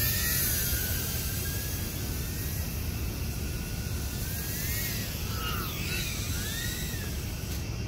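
Tiny whoop FPV drone's motors and propellers whining in flight, the pitch rising and falling with the throttle, over a steady low rumble.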